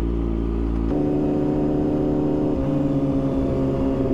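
Yamaha R6 sport bike's inline-four engine running steadily at highway speed, its note shifting about a second in and stepping slightly lower midway.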